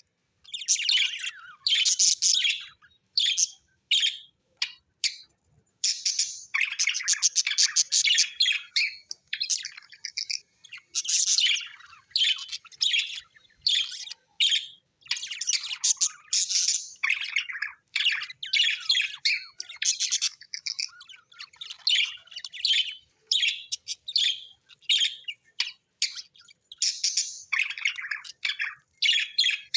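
Budgerigars chirping and chattering in quick runs of short, high calls, broken by brief pauses.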